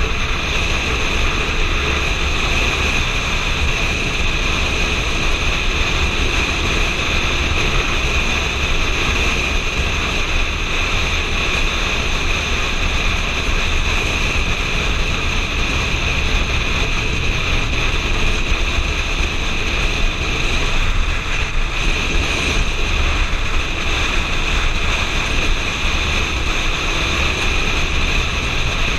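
Steady rush of wind over a helmet-mounted camera's microphone while riding a motorcycle at road speed, with the engine running underneath.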